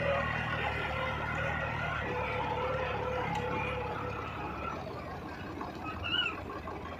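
New Holland 5620 Plus tractor engine running steadily under full load while it pulls a filled kraha earth-levelling scraper in high-range second gear. The engine note gets fainter about two-thirds of the way through. A brief high chirp sounds near the end.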